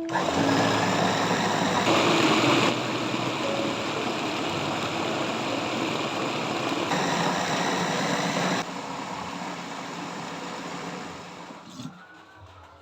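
A motor running steadily with a dense noise, its sound changing abruptly several times and fading out near the end.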